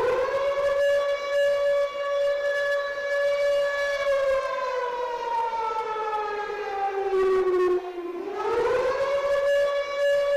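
Hockey goal siren with a civil-defense-style wail. It holds a steady high pitch, slowly winds down over about four seconds, then winds back up to full pitch near the end.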